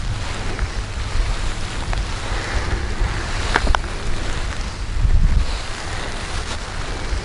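Wind buffeting the microphone: a steady rumbling rush that swells about five seconds in, with a few faint clicks.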